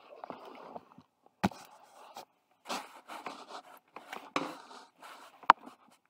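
Handling noises close to the microphone: bursts of scraping and rubbing, with a sharp click about a second and a half in and a louder sharp click near the end.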